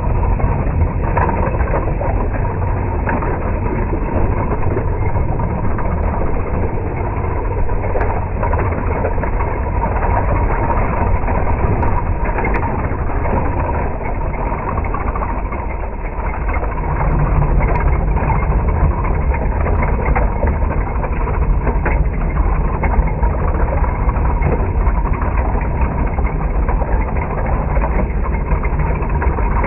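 HengLong M1A2 Abrams RC tank driving steadily, a continuous motor drone with a steady whine from its electric drive and gearbox and the rattle of its tracks. It dips briefly, then comes back louder with a deeper tone about 17 seconds in.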